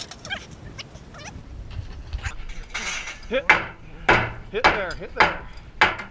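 Sledgehammer blows on a hot steel wagon-wheel tire, driving it down over the wooden felloes: a few light metal clinks, then five hard strikes about half a second apart, each with a short ring.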